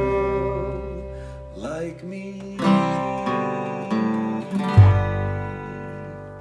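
Acoustic string band of guitar, upright bass and fiddle: a held sung note fades at the start, then a few strummed closing chords, the last with a deep upright-bass note, ring out and fade away as the song ends.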